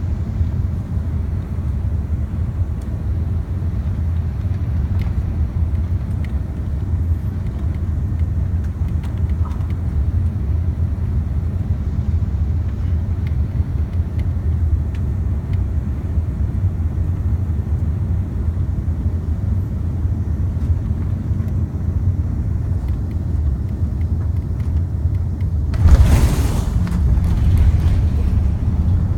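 Steady low rumble inside an Airbus A380's cabin as it taxis after landing: the engines at idle and the wheels rolling on the taxiway. Near the end a brief loud rush of noise cuts across it, followed by a few faint clicks.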